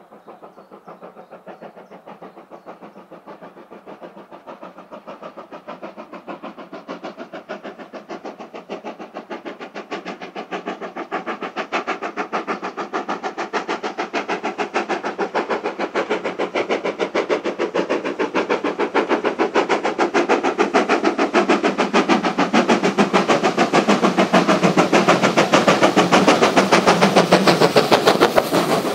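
Steam locomotive No. 9351 working a passenger train under steam, its exhaust beating in a rapid, even rhythm. The beats grow steadily louder as it approaches and are loudest as it passes close by near the end.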